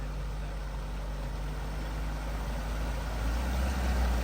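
A car's engine running at low revs, growing louder about three seconds in as it pulls away toward the floodwater.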